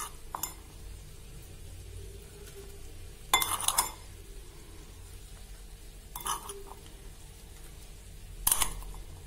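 Spoon clinking against a glass dish in four short bursts as sweet corn kernels are scooped out and dropped into a paper cup.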